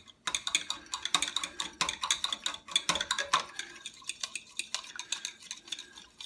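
Metal fork stirring a liquid marinade in a glass measuring cup, clinking quickly and irregularly against the glass.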